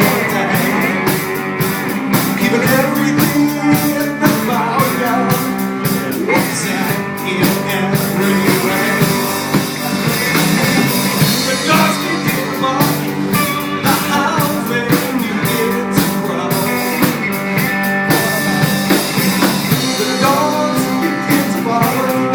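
Blues-rock band playing an instrumental passage: guitar lines with bent notes over bass and a steady drum beat.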